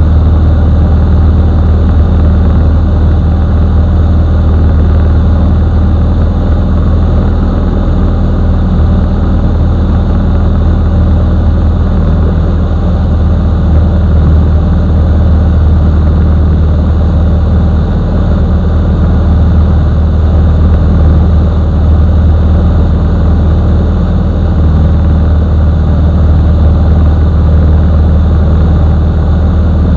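Bushby Mustang II's piston engine and propeller running steadily in cruise flight, heard inside the cockpit: a loud, even low drone that holds constant power.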